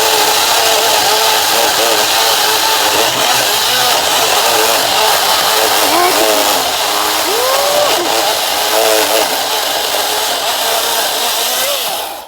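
Gas chainsaw, a Milwaukee XP saw much like a Husqvarna 372XP, running hard while cutting wood, its engine pitch dipping and recovering again and again. The sound stops abruptly near the end.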